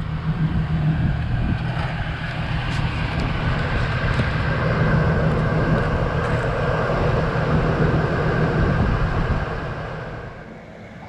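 Winch on a Jeep Cherokee XJ's front bumper hauling a stuck SUV out of sand: a steady mechanical drone that dies away about ten seconds in.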